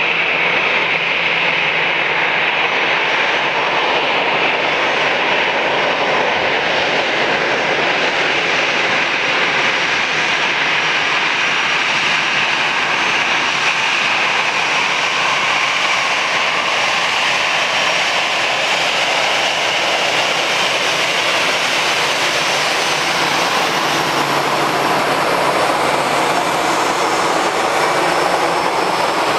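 Airbus A380-800's four jet engines running on departure: a loud, steady roar with a hissing edge and no clear change in pitch.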